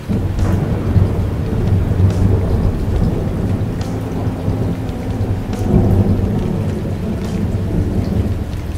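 Heavy rain with a long roll of thunder that sets in suddenly at the start, swells several times and fades toward the end.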